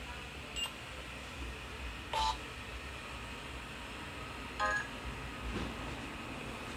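Short electronic beeps from a Nokia N70 mobile phone, three of them about two seconds apart, the middle one the loudest, over a steady hiss.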